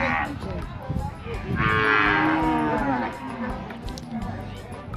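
Cattle mooing: one long, loud call beginning about a second and a half in and lasting about a second and a half.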